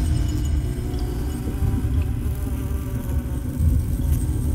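Dark ambient horror soundscape: a continuous low, wavering buzzing drone.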